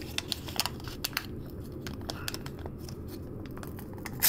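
Crinkling and small sharp clicks of a Pokémon card booster pack's wrapper and cards being handled, thickest in the first second and sparser after.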